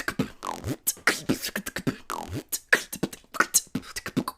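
Solo beatboxing built around lip rolls: fast percussive mouth hits between buzzing lip-roll tones that slide down in pitch.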